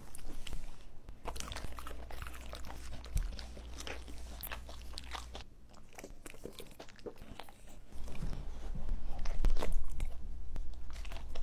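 Dogs chewing and crunching food, with many short crunches and clicks of their jaws. Near the end it grows louder, with wet slurping and licking of lips.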